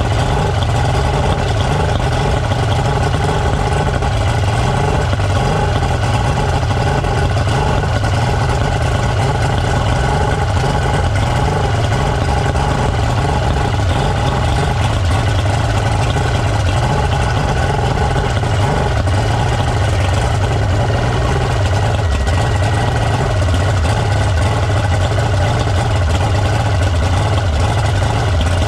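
Boat's outboard motor idling steadily and evenly, with no revving.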